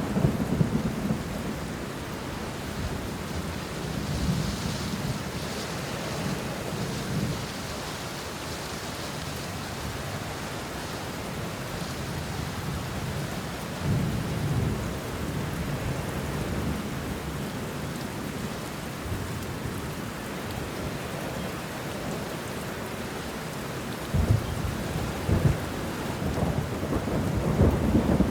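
Steady rain falling on banana leaves and bushes, with thunder rumbling low several times and a louder, sharper run of thunder near the end.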